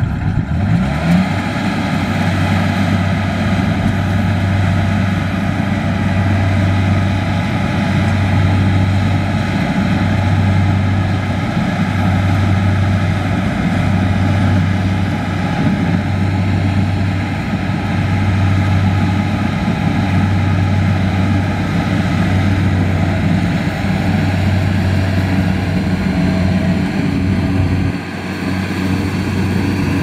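Kubota DC-70 Plus rice combine harvester running steadily while harvesting: its diesel engine hums under the clatter and whirr of the cutting and threshing machinery. The sound dips briefly near the end.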